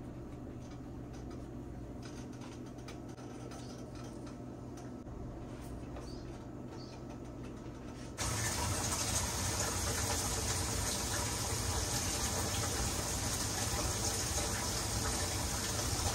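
Tortilla-wrapped rolls sizzling on a hot griddle pan, a fine crackling hiss. It is faint at first and becomes much louder and steadier about eight seconds in.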